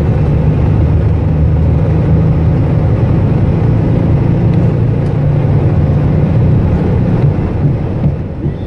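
Steady low rumble inside an Airbus A320 cockpit as the airliner rolls along the runway: engine noise and rolling noise together, easing slightly near the end.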